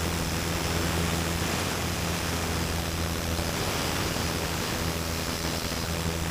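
Handheld power tool running continuously while cleaning buildup off a concrete pump piston cup: a steady hiss over a low, even hum.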